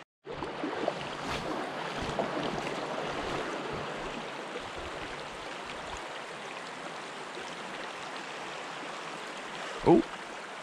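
River water rushing steadily over a shallow riffle, the current running high.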